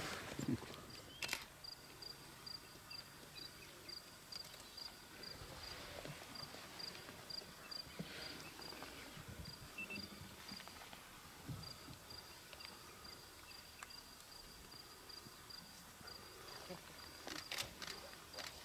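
Faint, steady chirping of an insect, a high pulse repeating about three times a second, with a short break near the middle. A sharp click comes about a second in and another near the end.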